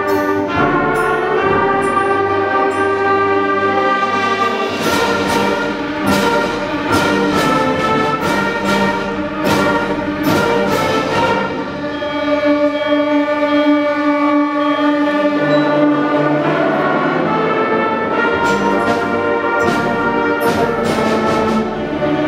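School concert band of woodwinds and brass playing in full: sustained chords, broken by a run of sharp accented hits through the middle and again near the end.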